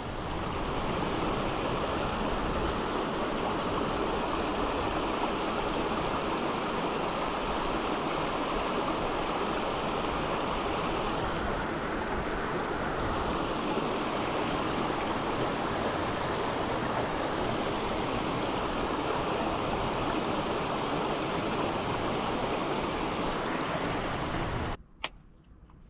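Steady rushing noise, like running water or wind, that cuts off abruptly near the end with a sharp click; faint thin calls follow in the quiet.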